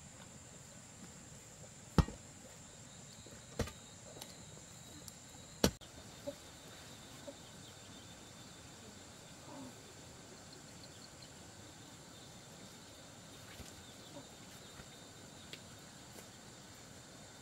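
Quiet rural background with a steady high insect trill, broken by three sharp knocks in the first six seconds.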